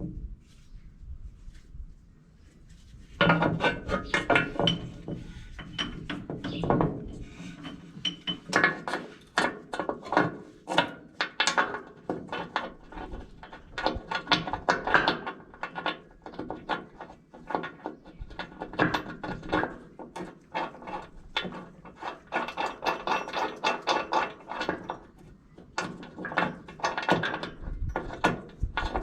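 Hand tools working on metal: bursts of rapid clicking and clinking with a metallic ring, starting about three seconds in.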